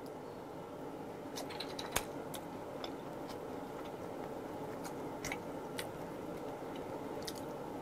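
Metal tongs clicking and tapping against a wire grill grate as eel pieces are turned, scattered light clicks with the sharpest about two seconds in, over a faint steady hiss.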